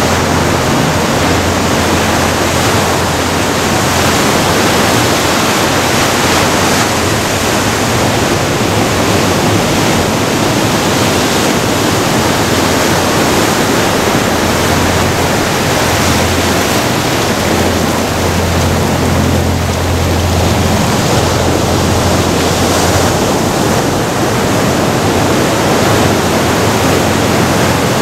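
Sea surf breaking and washing among rocks along the shore, a loud, steady rush of water.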